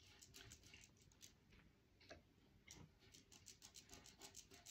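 Faint, quick scratchy ticks, about six a second, from a textured spalter brush's bristles being worked in half circles over a rough, chalk-painted vase surface.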